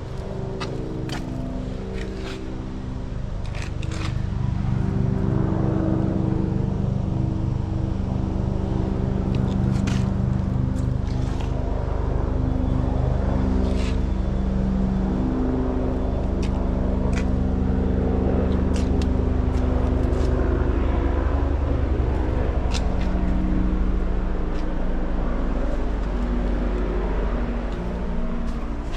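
An engine drone that runs steadily throughout, with scattered sharp clicks and ticks.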